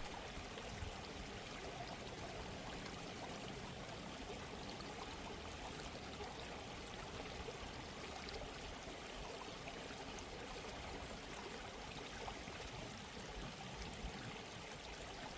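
Soft, steady sound of a flowing stream, running water without pause.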